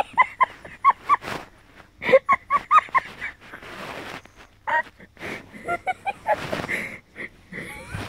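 A woman's high-pitched laughter in quick runs of short giggling notes, with breathy intakes of breath between the runs.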